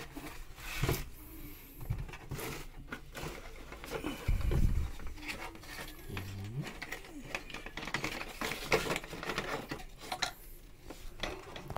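Cardboard packaging rustling and scraping as a black steel wire dish rack (IKEA HULTARP) is pulled out of its box, with irregular light clinks and knocks of the wire rack.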